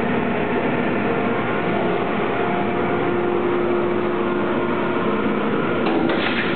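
Steady machinery hum in a glass-processing hall: an even, unchanging mechanical noise with a few held tones, and faint clicks near the end.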